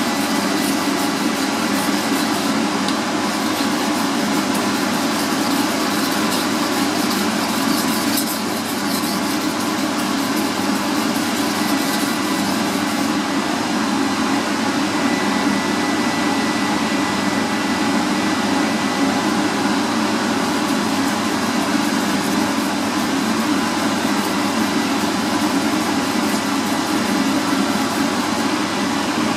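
A steady, unchanging mechanical hum and hiss. No separate scrape of strokes stands out.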